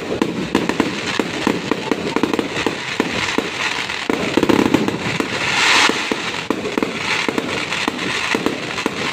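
Fireworks going off in quick succession: a dense run of crackling bangs, with a louder rush of hiss about five to six seconds in.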